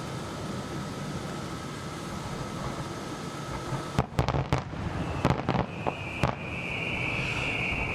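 Consumer fireworks going off: about four seconds in, a quick run of sharp cracks, followed by a high hissing whistle that holds for about three seconds.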